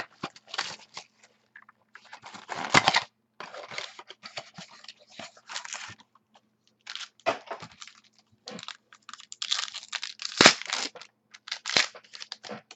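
Football card pack being torn open and its cards handled: irregular crinkling and tearing of the wrapper and rustling of cards, with a sharp snap late on.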